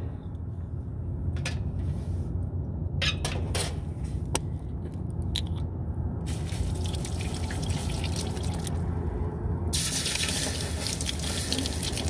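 Water poured from a plastic bottle onto a freshly brazed copper refrigerant line joint, starting about ten seconds in with a loud, even hiss as it cools the still-hot joint. A few light knocks and a shorter hiss come earlier.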